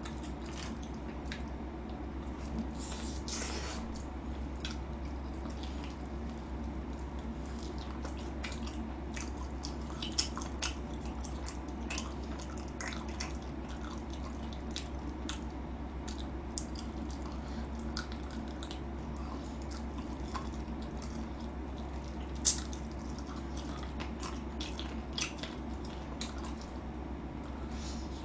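A person eating yangnyeom fried chicken with chopsticks: scattered small clicks and chewing noises over a steady low hum, with a sharper click about ten seconds in and another about twenty-two seconds in.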